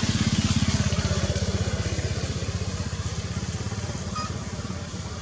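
Small engine running with a rapid, even putter, loudest at the start and slowly fading away.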